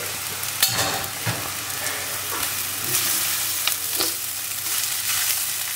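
Onion tempering sizzling in a hot pan while it is stirred, with a few short scrapes of the spoon against the pan.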